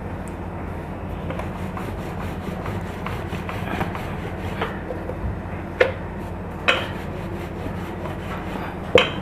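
Wooden rolling pin rolling out a thin disc of dough on a floured board: a steady rubbing noise, with three sharp knocks in the second half.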